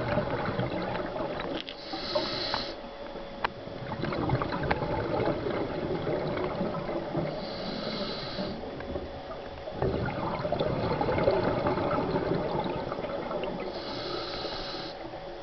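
Scuba diver breathing through a regulator underwater: a hiss of inhalation three times, about every six seconds, each followed by the rumbling gurgle of exhaled bubbles.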